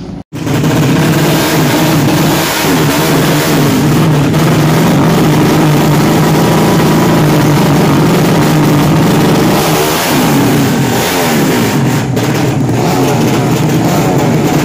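A 200 cc sleep-engine drag bike's single-cylinder engine revved hard at the start line, held high with the pitch wavering as the throttle is worked. About ten seconds in the revs drop and climb again.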